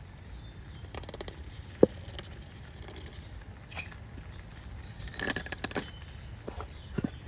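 Scattered light knocks and clinks from handling cooking tools and a pan during chicken prep, with one sharper knock about two seconds in and a brief cluster of clatter past the middle.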